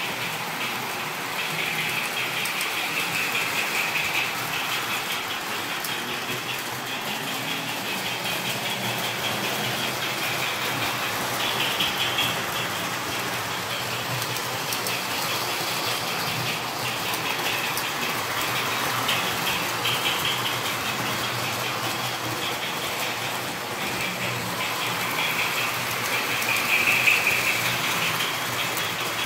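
O-scale three-rail model trains running: the wheels rolling and rattling over the metal track, with the locomotive motors whirring. The sound grows louder near the end as a train passes close by.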